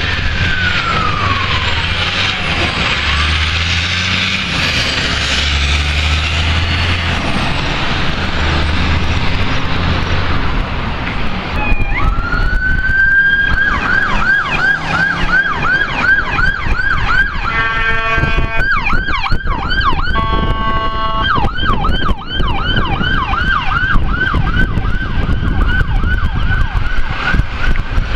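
Fire engine's wail siren sliding down and fading as it passes. About twelve seconds in, an approaching ambulance's electronic siren winds up and switches to a fast yelp, about three cycles a second, broken twice by blasts of a horn.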